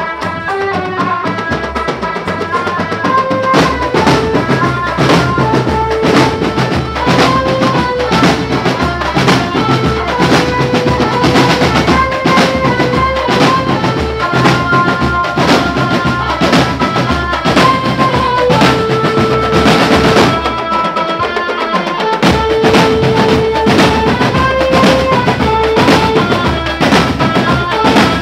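A marching drumband playing live: snare and bass drums beat a dense, fast rhythm under a steady melody line. The low drums drop out for about a second near the end, then come back in.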